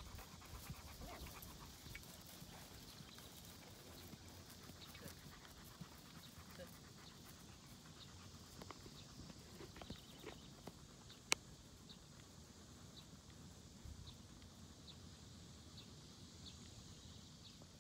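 Near silence: quiet open-air field ambience with faint, short high chirps recurring about once a second, and a single sharp click about eleven seconds in.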